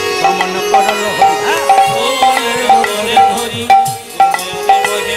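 Bengali kirtan accompaniment: hand drums with pitch-bending bass strokes keep a steady rhythm while a melodic instrument repeats a short high note over and over above a held drone, leading into a sung verse.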